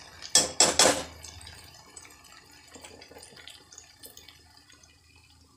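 Steel spoon scraping and knocking against a metal kadhai a few times in the first second while stirring frying masala, then a faint sizzle that fades away.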